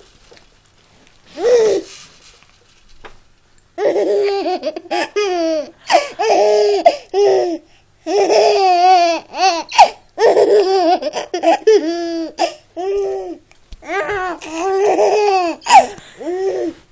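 A five-month-old baby giggling and laughing in a string of short, high-pitched bursts: one brief laugh about a second and a half in, then a long run of laughs from about four seconds in until near the end.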